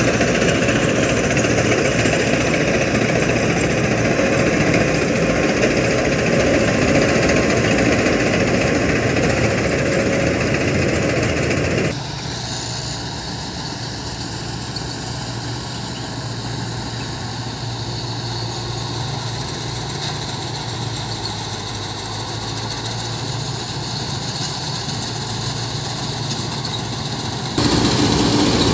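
A Sonalika DI-60 RX tractor engine runs steadily under load while driving a tractor-mounted combine harvester's cutter and threshing works. About twelve seconds in, the sound drops quieter as the machine is heard from farther off, then comes back loud near the end.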